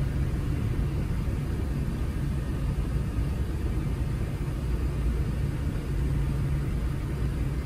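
Steady low rumble with a low hum inside the cabin of an Airbus A380-800 on the runway, from its engines and cabin air systems.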